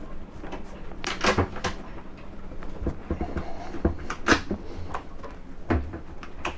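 Galley cupboard doors being opened by a push-button latch: a series of clicks and knocks from the latch and the door panels, with a louder knock at the end.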